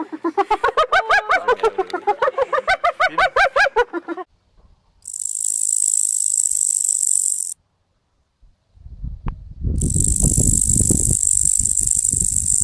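Animal calls: a fast run of pitched, rattling calls for about four seconds, then two long harsh hisses, the second with low rumbling under it.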